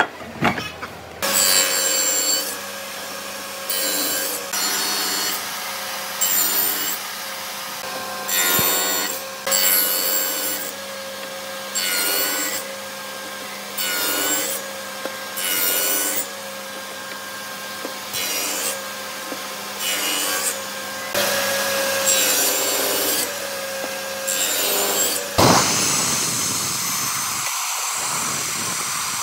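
Table saw running, its blade making about a dozen short passes, one every two seconds or so, into the end of an upright wooden post to cut a row of kerfs that waste away the wood for a joint. Near the end a second saw, a miter saw, starts up and runs steadily.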